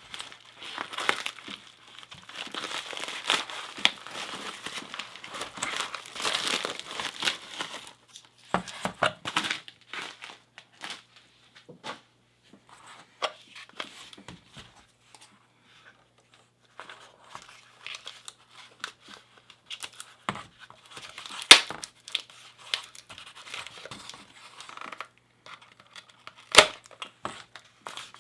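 Packaging of a vintage padlock being crinkled and torn open by hand, dense for the first several seconds. Then scattered handling clicks and taps, with two sharp, loud clicks: one a little past 21 seconds in and one near the end.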